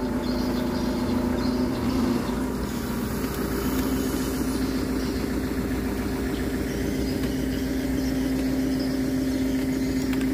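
An engine, just started, running at a steady idle with an even drone.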